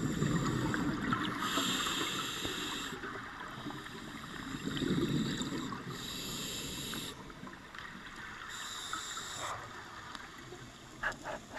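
Scuba diver breathing through a regulator underwater: the hiss of each inhalation through the demand valve alternates with the low bubbling rumble of exhaled air, about three breaths. A few sharp clicks come near the end.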